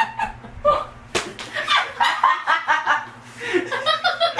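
Women laughing hard, with one sharp slap about a second in.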